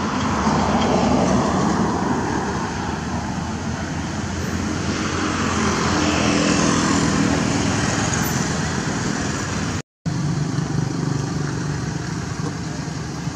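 Road traffic: a steady noise of motor vehicles going by, swelling twice as vehicles pass, with the sound cutting out for a moment about three-quarters of the way through.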